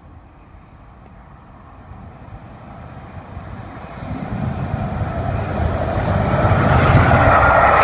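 Class 67 diesel locomotive 67006 running through with its two-stroke V12 engine rumbling, getting steadily louder as it approaches and draws level. Higher-pitched rail noise builds in over the last couple of seconds.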